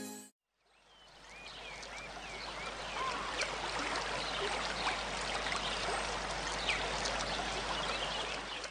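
Running stream water fading in as a steady rushing, with small birds chirping over it in short curving calls.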